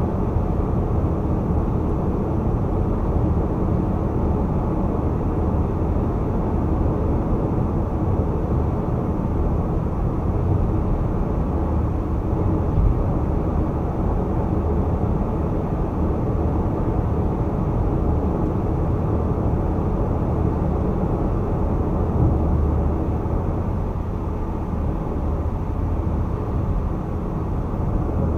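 Car cruising at highway speed: a steady low rumble of tyre, road and engine noise.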